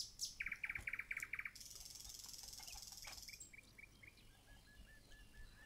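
A small bird chirping faintly in quick runs of short, evenly spaced notes, with a soft hiss in between, about two seconds in.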